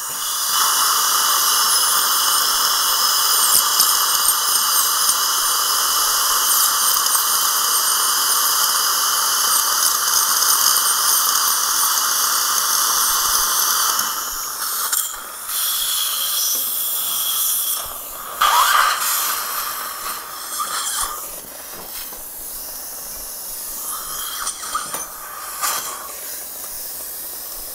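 High-speed air-turbine dental handpiece with a surgical bur sectioning an impacted lower wisdom tooth, running with a steady high whine and hiss for about the first half. After that it runs only in short intermittent bursts, the clearest about 18 seconds in.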